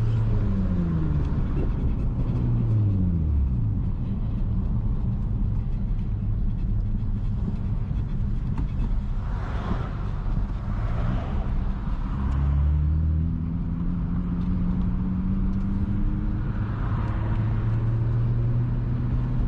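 Honda J32A3 V6 through a loud Skunk2 Megapower single-exit exhaust with the muffler and resonator deleted: the engine note falls as the revs drop over the first three seconds or so, runs low for several seconds, then climbs slowly and steadily as the car gets back on the throttle from about twelve seconds in.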